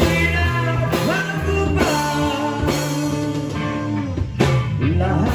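Rock band playing an instrumental passage between sung lines: electric guitar over bass and drum kit, with drum hits every second or so.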